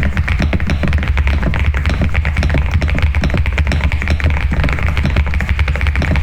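Fast typing on an Epomaker TH99 mechanical keyboard: a dense, continuous run of quick keystroke clacks, over a steady low hum.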